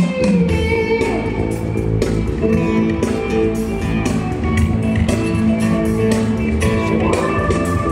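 Guitar-led music played loud through a stadium concert PA system during its sound check and alignment.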